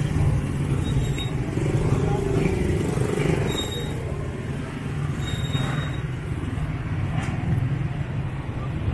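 Close-range street traffic: motorcycle and auto-rickshaw engines running in a steady low rumble.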